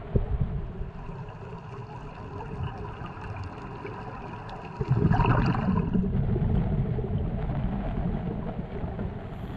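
Muffled underwater rumble and gurgling picked up by a diving camera, getting suddenly louder about five seconds in.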